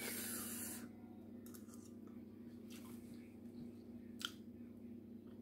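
Plastic seafood-boil bag crinkling briefly at the start as food is picked out of it, then quiet chewing with a few sharp clicks, the clearest about four seconds in.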